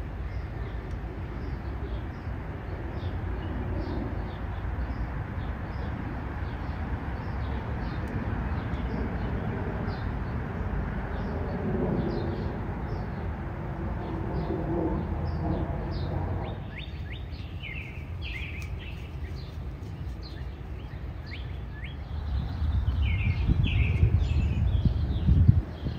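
Small birds chirping, many short calls again and again, clearer in the last third, over a steady low outdoor rumble that grows louder for a few seconds near the end.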